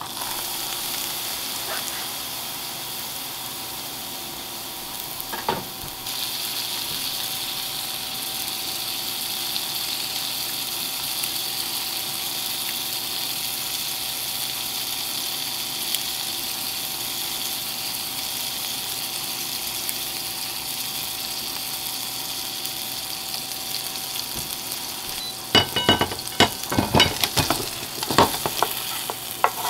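Olive oil with minced garlic and dried chilli sizzling steadily in a nonstick frying pan. From about 25 seconds in, wooden chopsticks stir the garlic and clatter rapidly against the pan.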